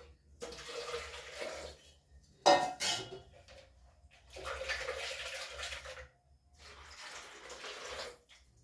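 Warm water being poured into the chapati mixture in three spells, with a short louder knock about two and a half seconds in.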